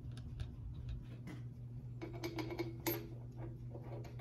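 Small metallic clicks and clinks as a steel head bolt is handled and set into its bolt hole in a cast-iron Mopar 360 cylinder head. A cluster of ringing clinks comes about two seconds in, the loudest near three seconds, over a steady low hum.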